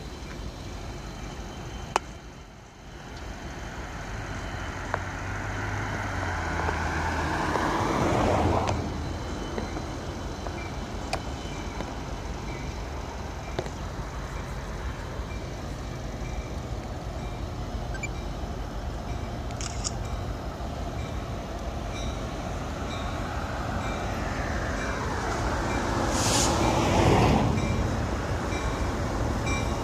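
Road vehicles passing close by, one about a third of the way in and another near the end, each with a falling pitch as it goes past. Under them is a low, steady hum from an approaching CSX freight led by three SD70M diesel locomotives, slowly getting louder.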